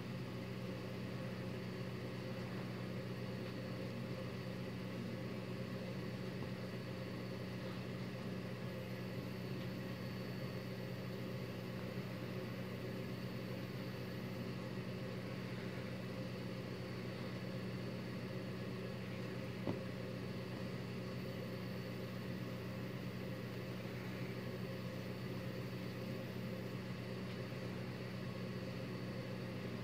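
Steady low hum, unchanging, with one small click about twenty seconds in.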